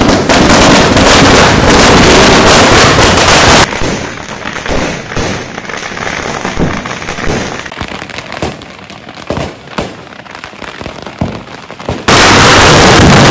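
Firecrackers packed inside a burning Ravan effigy going off. A loud, continuous crackling barrage runs for the first three and a half seconds, then gives way to scattered separate bangs and pops. A dense barrage starts again about twelve seconds in.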